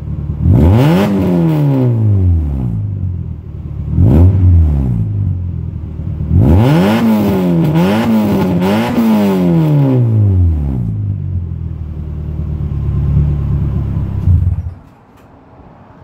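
Exocet kit car's engine revved through twin Yoshimura mufflers: one rev about half a second in, a short blip around four seconds, then three quick revs in a row, settling to a steady idle. The engine is switched off near the end.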